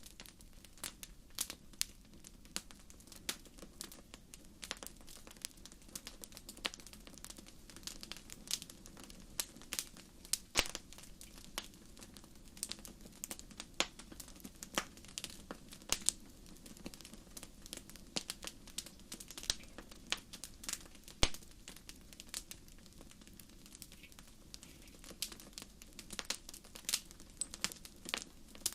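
Wood fire crackling in a fireplace: irregular sharp pops and snaps, a few louder than the rest, over a steady low background.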